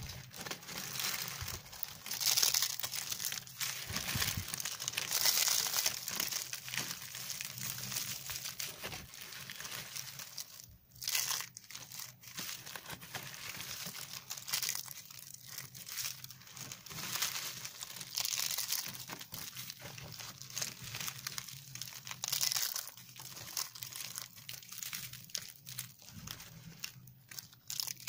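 Thin shavings of bar soap crunching and crackling as a hand squeezes and crushes them by the fistful. The crisp crackle rises and falls in waves every few seconds as the grip closes and opens.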